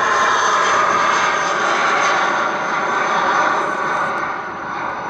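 Jetstar Airbus A320's twin jet engines at climb power as the airliner climbs out after takeoff: a steady loud rush with a hum around the middle, easing off a little near the end as it draws away.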